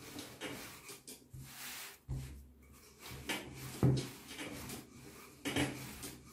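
Wooden rolling pin rolled back and forth over soft dough on a floured table: a run of rubbing strokes with a few sharper knocks.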